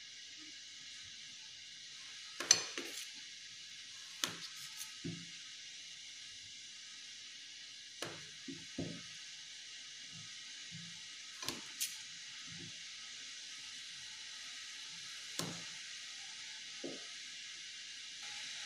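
Kitchen knife tapping and scraping against a stainless steel plate while cutting a firm block of paneer: about ten short, sharp clicks and taps, spread out irregularly, over a steady faint hiss.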